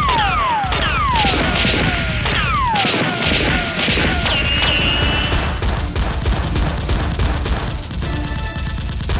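Rapid gunfire sound effects over action background music, with several falling whistle-like sweeps in the first three seconds.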